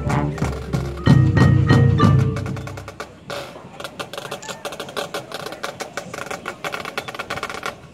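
High school marching band performing its field show: the full band plays loudly for the first couple of seconds, then drops to a quieter passage of light, quick percussion strokes from about three seconds in.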